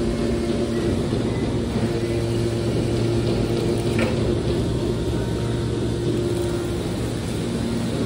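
Hydraulic scrap metal baler running steadily with a low hum while its ram pushes a compressed copper-scrap bale out through the discharge door, with a faint click about four seconds in.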